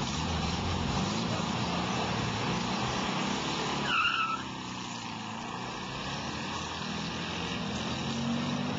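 VW Beetle's air-cooled flat-four engine running, then a short tyre squeal about four seconds in as the car launches off the start line. After the launch the engine sound is quieter as the car pulls away.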